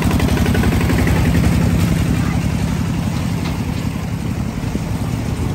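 An engine running steadily, getting slightly quieter in the second half.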